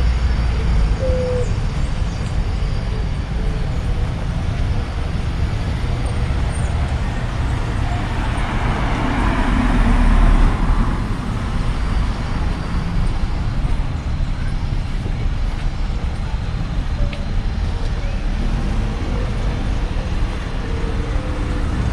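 Street traffic noise from passing cars, with one vehicle going by close, swelling and fading about eight to eleven seconds in.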